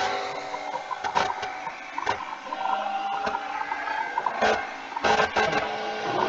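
Background noise carried over a video call: a steady hum with a few scattered knocks and clicks.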